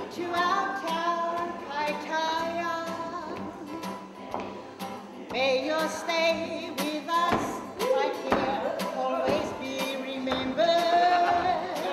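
A woman singing a melody with held, wavering notes, accompanied by a strummed acoustic guitar.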